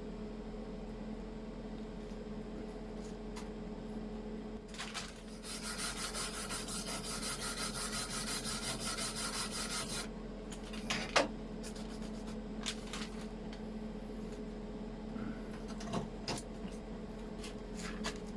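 Gasless flux-core MIG welder arc crackling steadily for about five seconds as a weld bead is run, over a steady electrical hum. A few sharp clicks and knocks follow after the arc stops.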